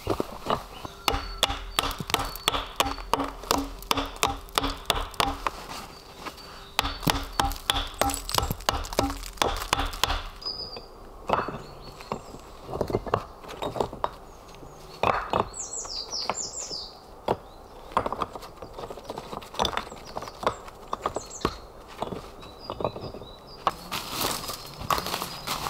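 Flat stones knocking and clacking against one another as they are set by hand on a dry-stone wall, in dense runs of sharp knocks for about the first ten seconds, then sparser. A bird chirps a few times in the middle, and near the end footsteps rustle through dry leaf litter.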